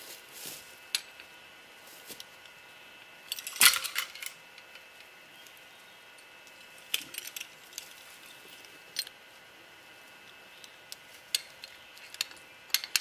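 A stick being worked through dry leaves and brush, giving scattered light clicks and rustles, with a louder clatter about three and a half seconds in.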